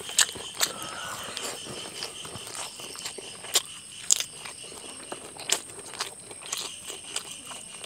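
Close-miked eating: chewing and crunching of rice, chicken curry and raw cucumber, with sharp wet mouth clicks and smacks at irregular intervals, over a faint steady high tone.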